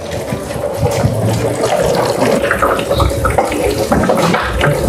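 Filtered water running in thin streams from a cotton-plugged plastic-bottle funnel into a plastic jar, splashing steadily as it drains through.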